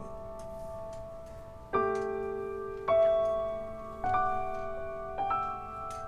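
Soft background piano music: slow notes and chords struck about once a second, each left to ring and fade.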